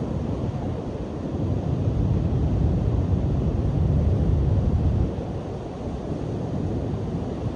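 Strong wind buffeting the microphone with surf crashing on the shore behind it, a low rumbling rush that swells for a few seconds and eases off about five seconds in.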